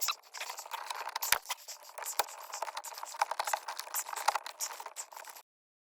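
Hands rummaging through loose parts: continuous rustling with many small clicks and taps, which cuts off abruptly about five seconds in.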